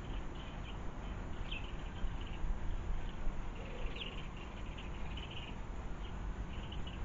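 Small birds chirping in the background: short, high-pitched calls repeated every second or so, over a steady low outdoor rumble.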